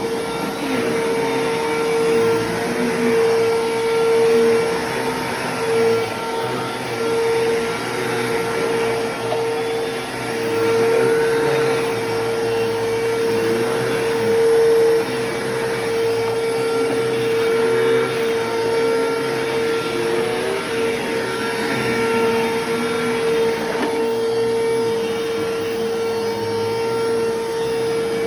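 Bissell Lift-Off bagless upright vacuum cleaner running while vacuuming, a steady motor whine over rushing air, its loudness swelling and dipping every second or two.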